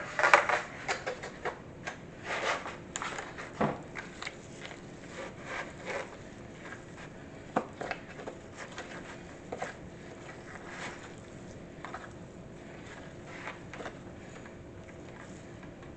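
A spoon scraping and stirring thick cookie dough in a mixing bowl, in irregular strokes that are loudest at the start and grow sparser towards the end.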